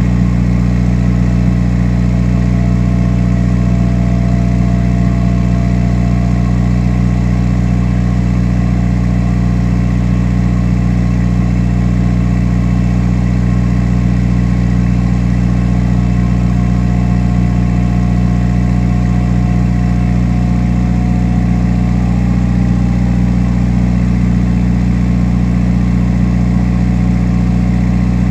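Subaru WRX's turbocharged 2.0-litre flat-four running a steady, loud cold-start high idle, heard at the tailpipe through a Grimmspeed catted J-pipe and Carven cat-back exhaust; the idle is held up while the oil is still cold.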